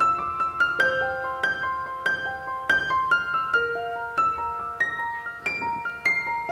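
Background music: a piano playing a gentle melody of single struck notes that ring on and overlap, about two or three notes a second.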